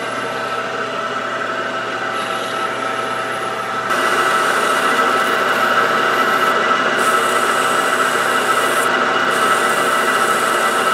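Small metal lathe running steadily with a constant whine from its motor and gearing. About four seconds in, a hand-held strip of abrasive paper is pressed against the spinning aluminium part, adding a louder, steady rubbing hiss as the bore and face are cleaned up.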